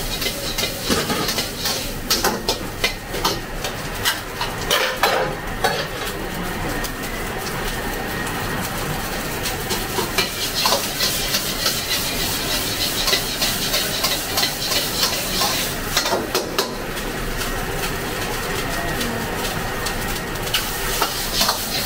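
Fried rice sizzling in a wok over a gas burner while a metal ladle stirs it, scraping and clanking against the wok again and again.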